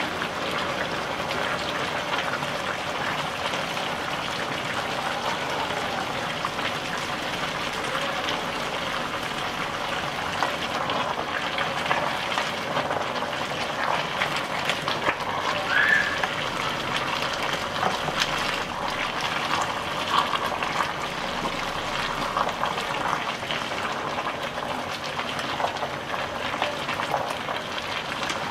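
A pot of young jackfruit and chicken bubbling as it simmers in stock. A wooden spatula stirs it, making scattered light scrapes and knocks against the pot.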